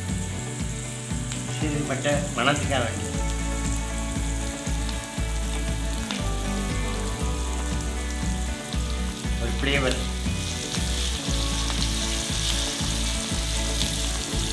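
Sliced onions and green chillies sizzling as they fry in oil in an aluminium kadai, stirred with a wooden spatula; the sizzle grows stronger near the end.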